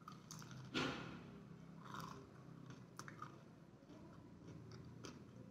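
Person biting into a deep-fried crispy paneer momo, with one crisp crunch about a second in, then chewing it with faint, scattered crunches.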